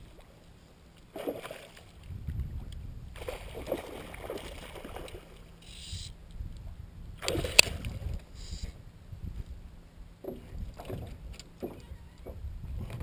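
Irregular knocks, bumps and scuffs on a small aluminium jon boat as a person moves about in it, over a low rumble, with one sharp knock about seven and a half seconds in.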